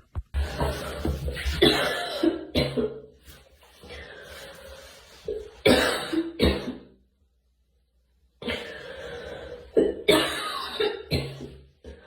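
A girl coughing in fits: a run of rapid coughs at the start, two sharp single coughs around the middle, a brief silence, then another run of coughs near the end.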